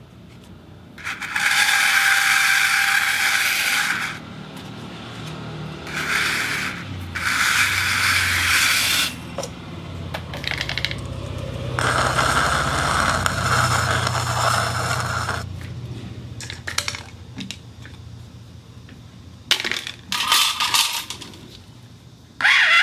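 Small hard objects scraping and clinking against a spinning turntable in several bursts of one to a few seconds each, with a low steady hum under the middle stretch.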